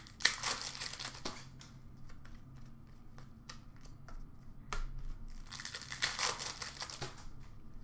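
Rustling and crinkling of a foil trading-card pack and the cards being slid and flicked through by hand. The noise comes in two spells, about a second long near the start and about two seconds long midway, with small clicks in between.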